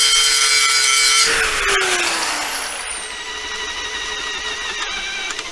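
Angle grinder running at full speed grinding on the steel bumper frame, then winding down with a falling whine after about a second. A cordless drill then runs steadily, drilling into the steel.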